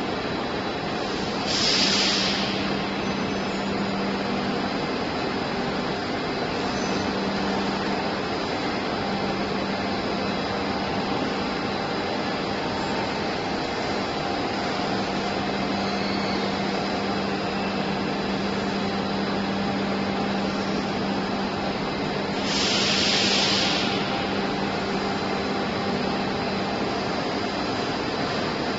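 Plastic pipe production machinery running: a steady hum over an even mechanical drone. It is broken twice by a short, louder hiss, once about two seconds in and again later on.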